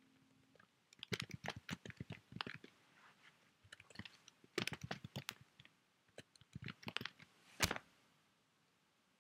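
Irregular clusters of small clicks, taps and knocks from hands handling the recording device, with one louder knock near the end.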